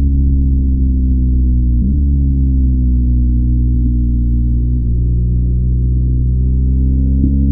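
BMW R1250GS boxer-twin engine with its stock exhaust, running under way on the road as a deep, steady drone. Its pitch eases down after a short break about two seconds in and climbs again near the end.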